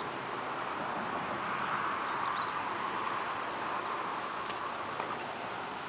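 Outdoor ambience: a steady rushing hiss that swells slightly a couple of seconds in, with a few faint bird chirps.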